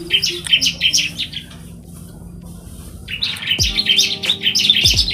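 Several bar-winged prinias (ciblek) chirping in a rapid, busy chatter. They pause for a couple of seconds mid-way, then start up again. The flock is lively after a feed of mealworms and seemingly in breeding condition.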